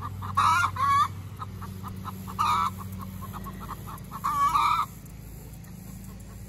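Hens clucking and squawking in agitation: four loud squawks in the first five seconds, with quick soft clucks in between.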